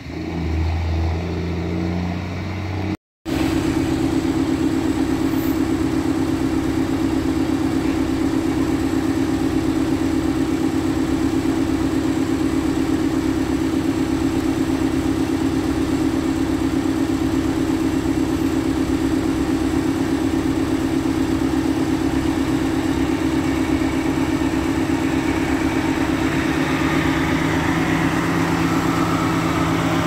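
Heavy diesel truck engine running at a steady speed close by, a constant drone with a fast even pulse. Near the end more noise builds in the upper range as a lowboy trailer rolls into view. The first few seconds are a different, more distant truck, cut off by a brief dropout.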